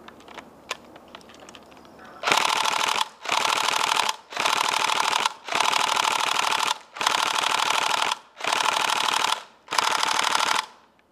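Tokyo Marui Next Gen SCAR-L airsoft electric gun firing on full auto in seven bursts of about a second each, with short pauses between. A few faint clicks come first.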